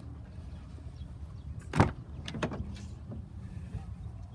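Isuzu NPR truck's cab door being opened: a sharp latch click a little under two seconds in, then two lighter clicks, over a steady low rumble.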